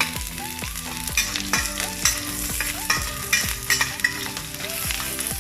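Chopped onion and garlic sizzling in hot oil in a pan while being stirred, with a utensil scraping and clicking against the pan several times.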